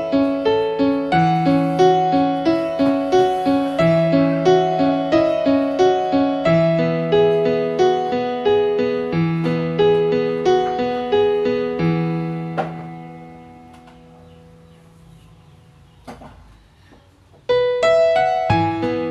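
Background solo piano music with a steady, gentle rhythm. It fades out about two-thirds of the way through, leaving a quieter stretch with a single faint knock, then the piano starts again near the end.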